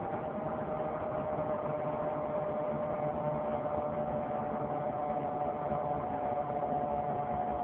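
Steady whine in two close pitches over road noise, from the front driver-side wheel area of a 2003 Saturn Vue 4-cylinder AWD on the move. It follows road speed, and a replaced wheel hub has not cured it.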